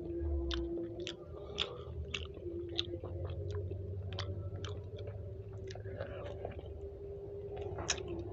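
Close-up chewing of grilled chicken, with wet mouth clicks and smacks about twice a second, over a steady low hum.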